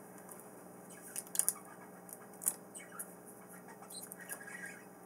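Faint rustling and a few light taps of cardstock and a metal cutting die being handled, with a low steady hum behind.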